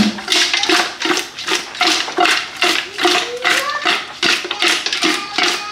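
Curried goat meat being tossed in a dish: rhythmic wet slapping and rattling, about three to four shakes a second, with the dish ringing briefly between shakes.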